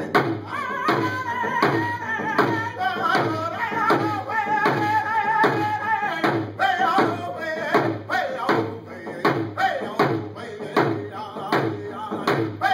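Round dance song: a man singing high-pitched over a steady hand-drum beat struck with a beater, about two strokes a second. The singing fades out a little past halfway while the drum beat carries on.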